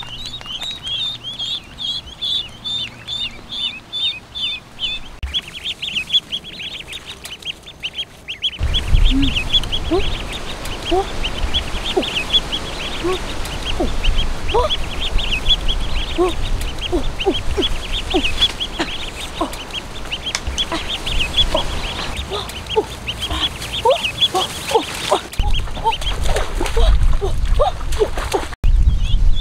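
Ducklings peeping in a rapid series of high calls, about three or four a second, with lower gliding calls mixed in. From about nine seconds in, a low rumbling noise runs under the calls and grows louder near the end.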